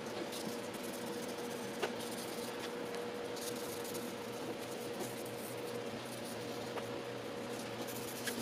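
Hand sanding of an old pickup tailgate's sheet metal with fine 1200-grit sandpaper: a steady scratching with a few light ticks, over a steady low hum.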